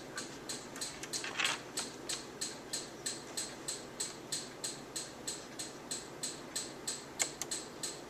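Rapid, even ticking, about four sharp ticks a second, with a brief rustle about a second and a half in.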